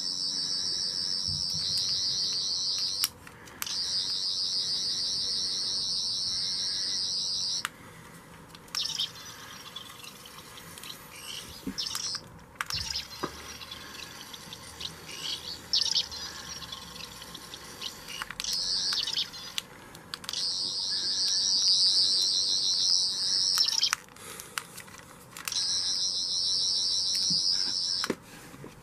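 Thirteenth Doctor sonic screwdriver toy by Seven20 playing its high warbling electronic sound effect in stretches of a few seconds, each started and stopped with a sharp click of its button. In the middle the warble stops and a quieter, irregular sound takes its place for about twelve seconds.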